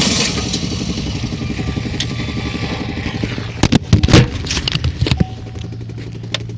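Engine running with a fast, even, rhythmic knock from inside it. A few loud clattering thumps come about three and a half to five seconds in, and then the engine settles into a steadier hum.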